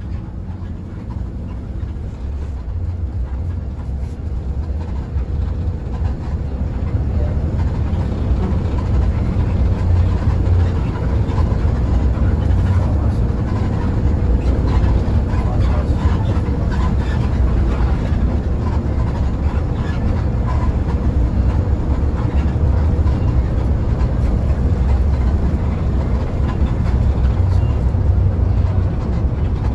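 Mercedes-Benz OH1526 bus heard from inside the cabin while driving: a steady, deep engine and road drone. It grows louder over the first eight seconds or so, then holds steady.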